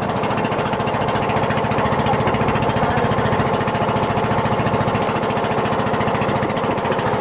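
A small boat engine running steadily under way, with a fast, even pulse.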